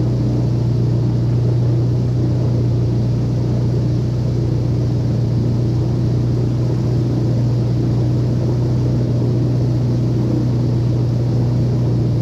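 Airboat's engine and air propeller running at a steady, unchanging speed, a loud constant drone with a strong low hum.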